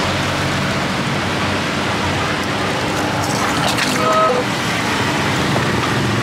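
Electric citrus juicer running with a steady motor hum as peeled oranges are pressed against its spinning reamer and ground down into juice and pulp.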